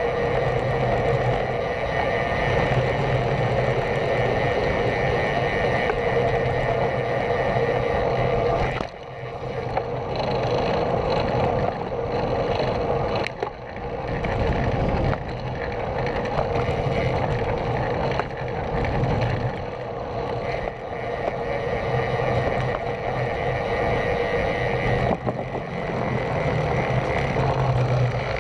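Wind rushing over a camera on a moving road bike, with tyre and road noise, steady with a few sudden brief dips.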